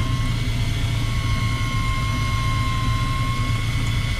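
Boat engine idling steadily: a constant low hum with a thin, even whine above it.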